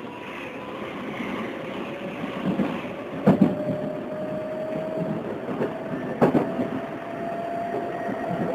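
Odakyu 8000 series electric train running with its field-chopper-controlled traction motors. A steady whine rises slowly in pitch as the train gathers speed. Twice the wheels clack sharply over rail joints.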